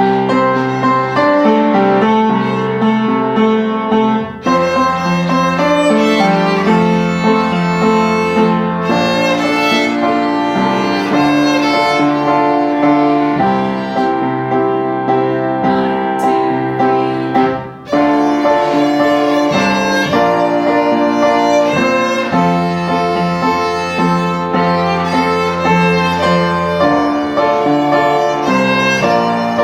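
Violin playing a sustained melody over a steady lower accompaniment. The music drops out briefly twice, about four seconds in and a little past the middle.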